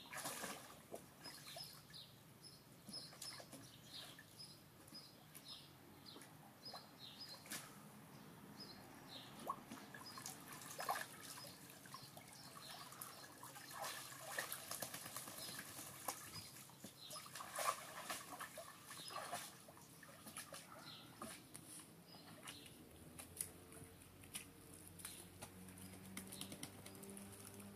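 Leonberger dog wading and pawing in a shallow plastic paddling pool: short, irregular splashes and sloshes of water, loudest in the middle stretch. Birds chirp faintly in the background.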